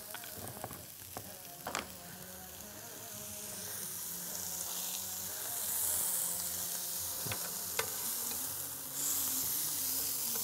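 Salmon fillets sizzling on an electric grill pan, the hiss growing louder about halfway through, with a few sharp clicks of metal tongs.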